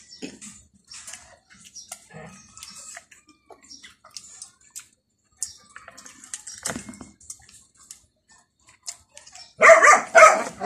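Faint clicks and lip smacks of eating by hand, then a dog barks twice, loudly and sharply, near the end.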